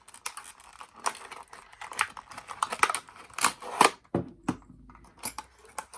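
Padlock packaging being handled and pulled open: irregular clicks, taps and crinkles of plastic and card, with a few sharper clacks in the middle.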